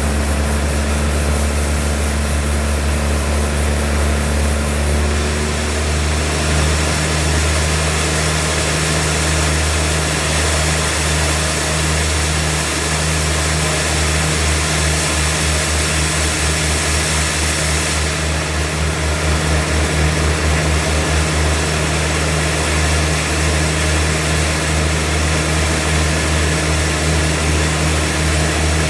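Sawmill machinery running steadily: a loud, even engine drone with a continuous higher hiss, shifting slightly in tone about five seconds in and again about eighteen seconds in.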